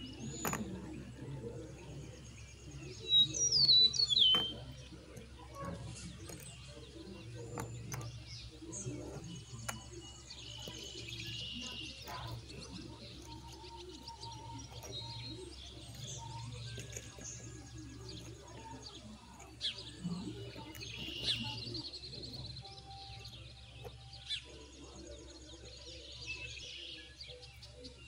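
Birds chirping: a few loud, quickly falling high chirps about three to four seconds in, and fainter chirping on and off through the rest. There are scattered light clicks, as of small wooden sticks being handled and set down.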